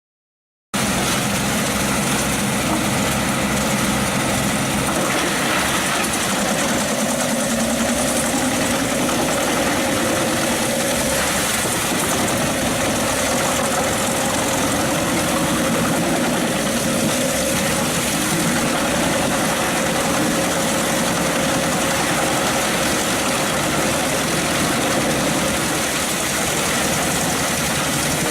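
Pezzolato PTH 900 M drum wood chipper running on its Scania DC09 diesel engine: a loud, steady machine noise that starts abruptly just under a second in.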